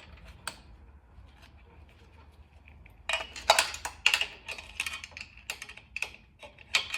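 Metal roller drive chain clicking and rattling as its links are handled and fed around a motorcycle sprocket, in quick irregular clatters from about three seconds in. It is quiet before that apart from a single click.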